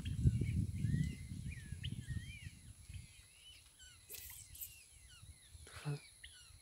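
Small birds chirping, many short rising and falling calls, over a low irregular rumble that fades out after about three seconds. A brief hiss comes about four seconds in and a short knock near the end.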